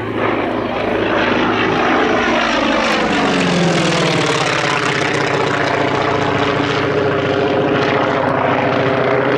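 North American T-28 Trojan's radial engine and propeller on a close display pass. The loud engine note falls in pitch about three seconds in as the plane goes by, then holds steady.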